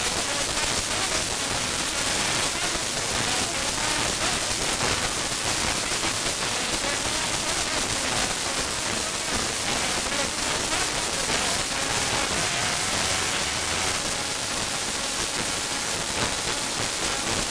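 A roomful of people clapping along and singing, a dense continuous wash of hand claps with voices mixed in.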